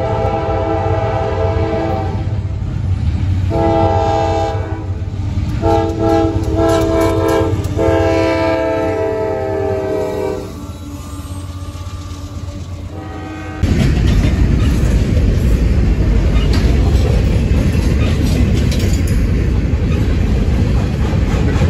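CSX freight locomotive's air horn sounding several blasts, its chord sliding down in pitch in the later ones as it passes. About two-thirds of the way through this gives way to the loud rumble and clatter of freight cars rolling past close by.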